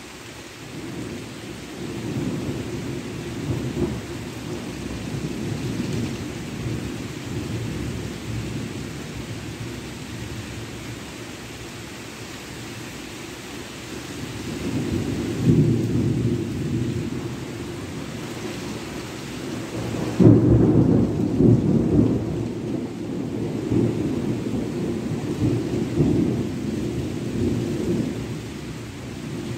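Rolling thunder from a summer night thunderstorm: long, low rumbles that swell and fade several times, the loudest peal breaking about twenty seconds in, over a steady hiss of rain.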